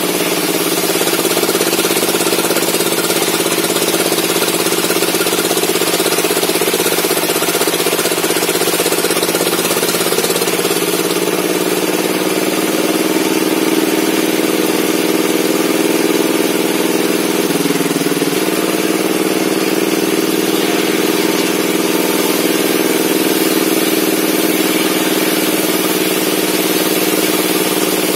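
Circular saw bench running steadily, a continuous machine hum with a high hiss over it; its pitch shifts about a third of the way in and dips briefly about two-thirds through.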